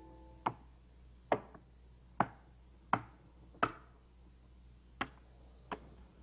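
A series of sharp knocks or taps, about one every three-quarters of a second, with a longer gap about four seconds in.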